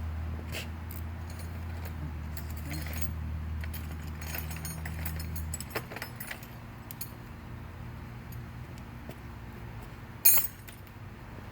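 Metal sockets clinking and rattling while someone searches through a socket set for the right size, with one sharper clack near the end. A low steady hum underneath stops about halfway through.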